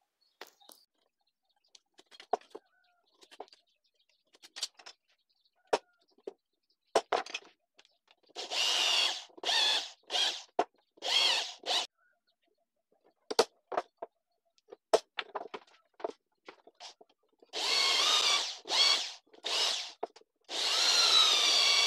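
Corded electric drill boring pilot holes into maçaranduba hardwood, running in short bursts with a wavering whine. Before the drilling there are a few light clicks and knocks of tools being handled on the bench. The drilling comes in two groups, the first about eight seconds in and the second near the end.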